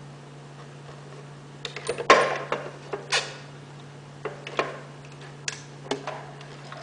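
Scattered clicks and knocks of hands working the parts of a Necchi Royal 3205 FA sewing machine, bunched about two to three seconds in, over a steady low hum.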